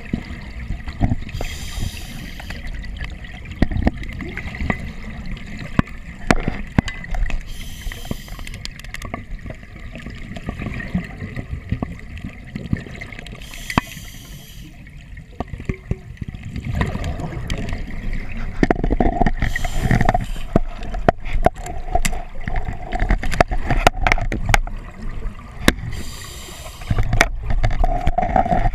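Open-circuit scuba breathing heard underwater: a hiss from the regulator on each inhalation, five times about six seconds apart, between gurgling rumbles of exhaled bubbles. Many short clicks and knocks run through it.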